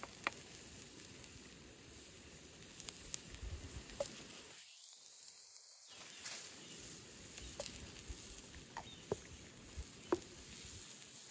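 Garlic, ginger, shallot, chilli and lemongrass frying in a pan over a wood campfire: a quiet, steady sizzle with a few sharp ticks scattered through it. The sizzle briefly drops away about five seconds in.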